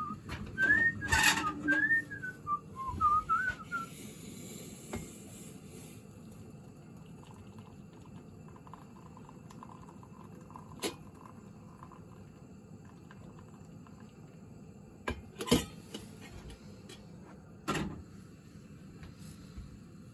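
A person whistling a short tune that wavers up and down for about four seconds, then a few sharp knocks later on.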